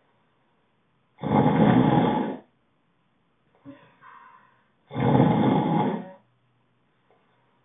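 Snoring: two long, loud snores about three and a half seconds apart, with a fainter breath between them.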